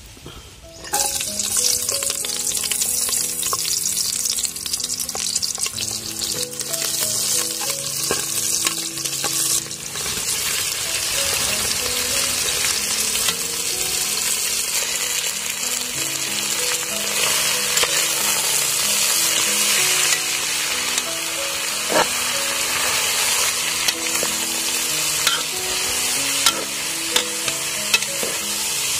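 Food frying in hot oil in a pan: a loud, steady sizzle that starts suddenly about a second in. A few sharp knocks of the stirring utensil against the pan come near the end.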